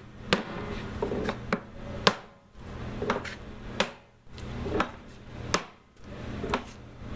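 A hammer striking a hoop driver to drive a steel hoop down onto an oak wine barrel, working around the barrel to tighten the staves: about ten sharp, unevenly spaced hits, the loudest about two seconds in.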